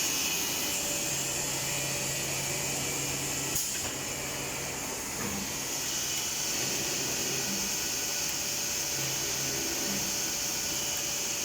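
Rover 322 CNC machining centre running, a steady high hiss and whine with a faint low hum, and one short knock about three and a half seconds in.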